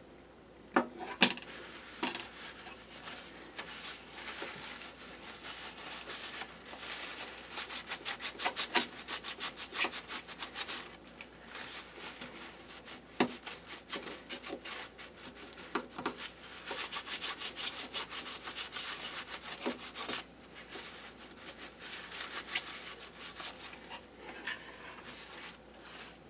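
Paper towel rubbing in repeated scratchy strokes, wiping old thermal pad and paste residue off laptop cooling parts, with a few sharp taps.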